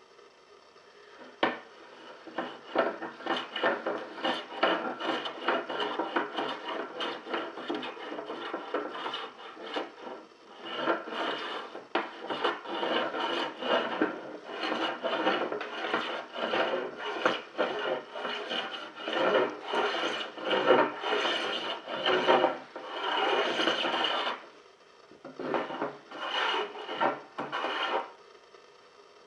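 Hand tool scraping along the edges of a wooden board in quick, repeated strokes, chamfering the edges. The work starts about a second and a half in, pauses briefly twice, and stops shortly before the end.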